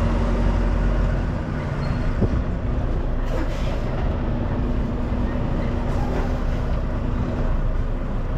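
Semi-truck's diesel engine running steadily, heard from inside the cab as a constant hum over a deep rumble; the deepest rumble eases about a second in.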